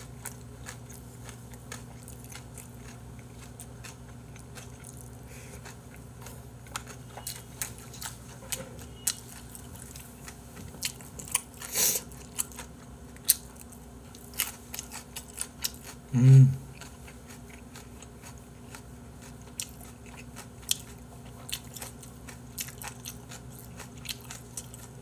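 A person eating bossam, boiled pork with kimchi and greens, close to the microphone: scattered wet chewing clicks and small crunches, busiest around the middle, with a brief hum from the eater about 16 seconds in.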